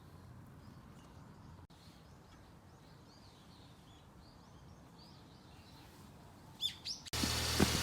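Faint outdoor background with small birds chirping softly, then a few louder bird calls near the end. In the last second a steady, much louder mechanical hum cuts in suddenly.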